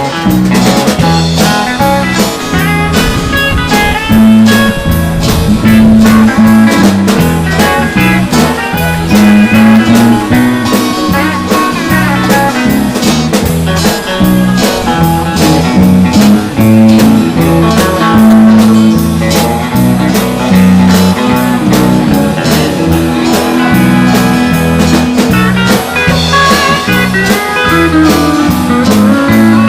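Country band playing an instrumental break with no singing: electric guitar over bass and a steady drum beat.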